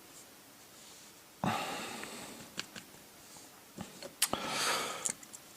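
A person breathing out sharply near the microphone, twice, with a few small sharp clicks between, typical of tiny lock pins and tools being handled.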